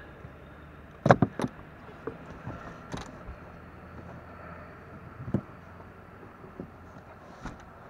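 Knocks and bumps on a boat's deck from hands and gear being handled. The loudest cluster of three or four comes about a second in, with single knocks near three and five seconds, over a steady low rumble.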